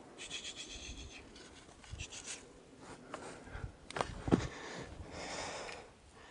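Rustling of camouflage clothing and handling of a scoped hunting rifle at close range, with a sharp knock about four seconds in as the gear bumps against something hard, and a softer hiss near the end.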